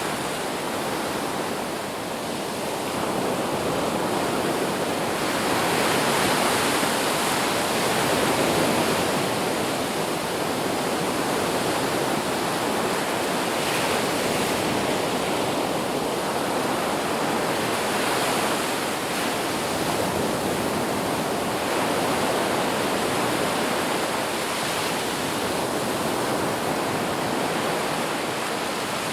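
Ocean waves breaking on a beach: a continuous wash of surf that swells and eases every few seconds.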